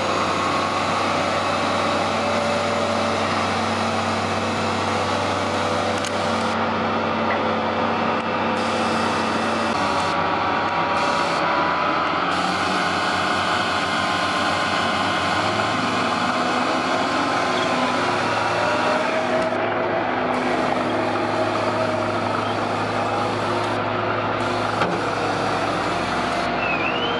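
Large Fendt tractor's diesel engine running steadily as it pulls a silage trailer, its engine note shifting a couple of times.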